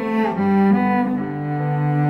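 Cello bowed in a slow melody: a few sustained notes, then a long, lower held note from about a second in.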